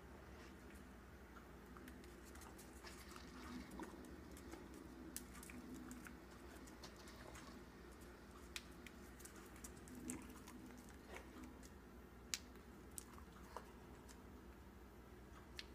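Faint, scattered ticking of a West Highland terrier's claws on a ceramic tile floor as it moves about sniffing, with a few sharper clicks in the second half, over a low steady room hum.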